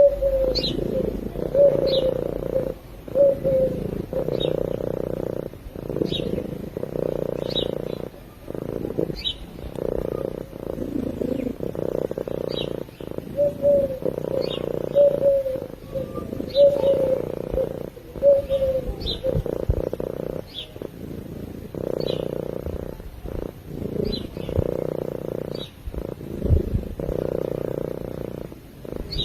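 Domestic cat purring, a steady low rumble that breaks briefly every second and a half or so between breaths. Faint short high chirps repeat at about the same rate.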